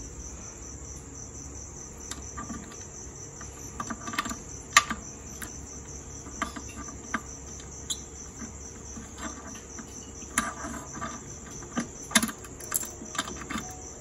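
Small metal clicks and taps as a nut and washer are fitted by hand onto a motorcycle footpeg's pivot bolt and bracket. A steady, evenly pulsing high cricket chirp runs underneath.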